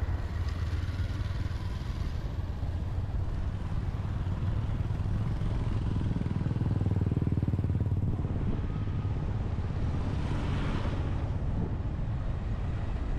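Motorcycle engine running steadily while riding, with road and wind noise, a little louder around the middle. A brief hissing swell comes about ten seconds in.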